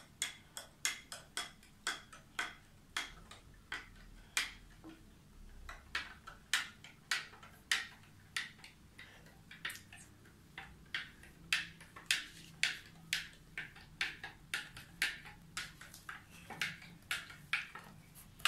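A stirring stick clicking against the inside of a model volcano's cup while stirring a water, detergent and baking-soda mixture, about two clicks a second.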